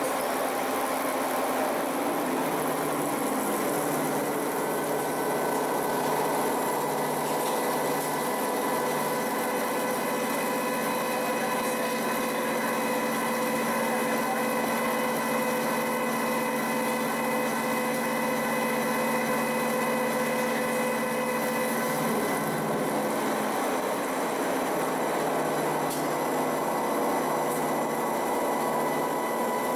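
CNC machine milling a clamped metal block with a disc-shaped cutter under coolant flood: a steady machining drone made of several steady tones over a hiss. The tones shift slightly about two-thirds of the way through.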